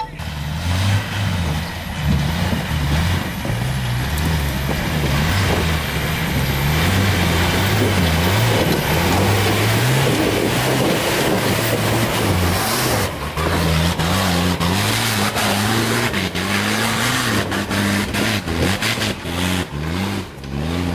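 4x4 pickup truck's engine working hard under load up a steep muddy slope, its revs rising and falling again and again as the throttle is worked. In the second half there is a run of sharp knocks and clatters.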